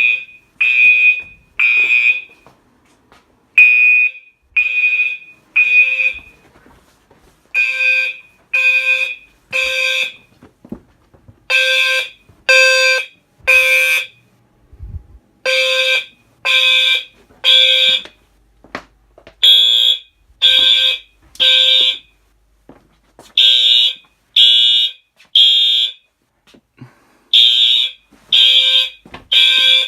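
Fire alarm horns and a System Sensor low-frequency sounder sounding together in code 3 (temporal-3), a low tone under higher-pitched horn blasts. Three half-second blasts, then a pause of about a second and a half, repeating every four seconds: the standard evacuation signal.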